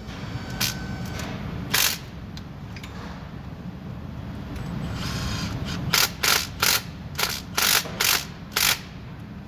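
Hand ratchet wrench clicking in short strokes as bolts are run down: a couple of strokes near the start, then a quick run of about eight strokes in the last few seconds.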